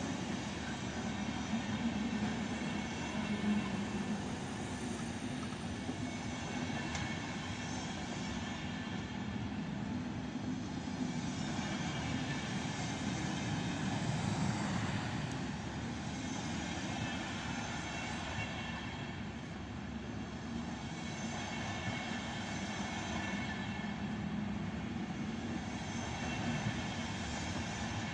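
Deutsche Bahn Intercity passenger coaches rolling along the platform, their wheels running on the rails with a steady noise and no break.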